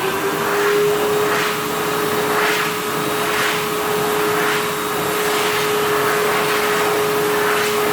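Electric hand dryer running: its motor whine has just risen to speed and holds one steady pitch under a loud rush of air, which swells about once a second.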